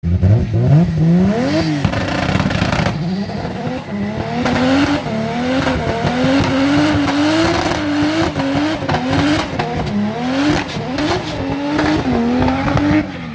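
Drag car doing a burnout: the engine climbs in revs, then is held high and pulsed up and down about twice a second, over the squeal and hiss of the spinning rear tyres, and falls away near the end.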